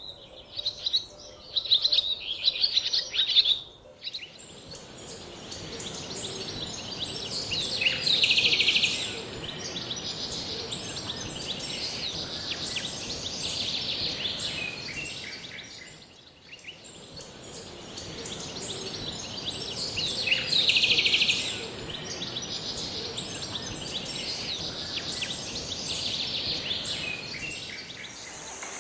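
Birds chirping in quick bursts, then a steady high-pitched hiss sets in about four seconds in, with bird calls over it and two louder clusters of chirps.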